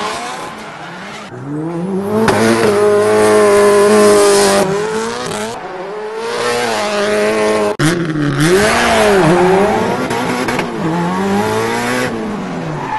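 Racing car engine revving up and down with squealing tyres, played as a sound effect. It cuts out for an instant about eight seconds in, then resumes.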